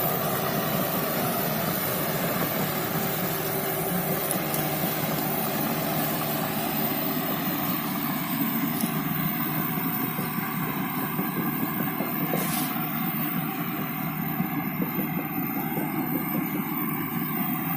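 Diesel engine of a heavy earthmoving machine running steadily under work.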